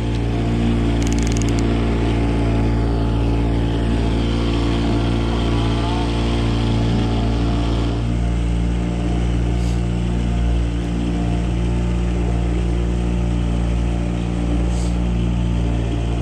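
Boat motor running steadily at trolling speed: a low, even hum with a fixed pitch. The note shifts slightly about eight seconds in.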